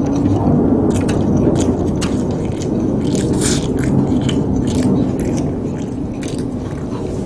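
Close-miked chewing and wet mouth smacks of spicy jjajang buldak noodles, with chopsticks tapping and scraping on the platter as short sharp clicks. A steady low rumble runs underneath.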